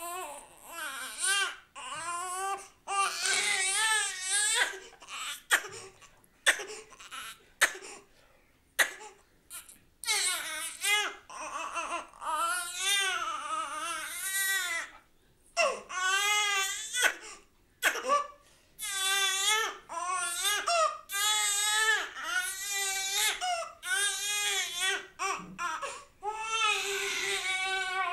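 Newborn baby crying: repeated high-pitched, wavering wails a second or two long with short breaths between, broken into short choppy sobs for a few seconds several seconds in.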